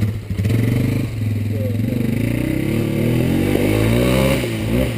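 ATV engine running, then revved: its pitch climbs steadily from about a second and a half in and falls back near the end.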